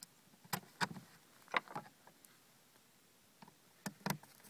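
Light clicks and taps of machine screws and a metal drawer handle being handled against a drawer front as the screws are pushed through their holes and a screwdriver is set to them: a few separate clicks, two near the start, a pair about a second and a half in, and two near the end.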